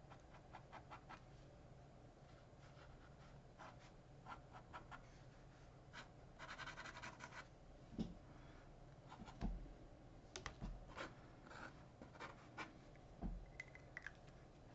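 Faint scratching of a Sharpie marker's felt tip drawing short strokes on paper, with a denser run of strokes about six to seven seconds in. A few soft knocks are heard along the way.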